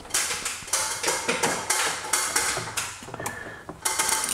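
Metal hand tools from a socket set clinking and knocking as they are handled and fitted together: a run of irregular sharp clicks and taps.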